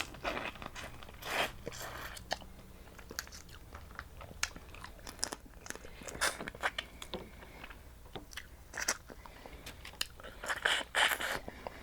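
Crab shells being cracked and crunched by hand and teeth, with close-up chewing. Sharp irregular cracks come several seconds apart, with a cluster near the end.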